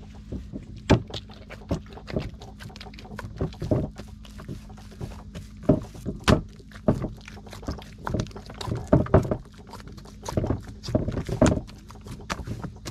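Bread dough being kneaded by hand in a wide unglazed clay dish: irregular slaps and thumps, one or two a second, as the dough is pressed, folded and pushed down against the dish.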